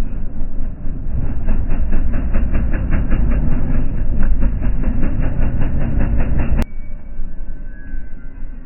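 An ATV under way, its engine running amid heavy wind rumble on the microphone, with a regular pulse of about six beats a second. The sound cuts off abruptly about six and a half seconds in, leaving a much quieter background.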